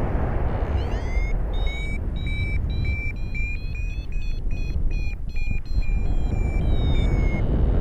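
Paragliding variometer beeping over heavy wind noise on the microphone: a few quick upward chirps about a second in, then short high beeps about two a second whose pitch edges up and then falls back, the vario's signal of climbing air.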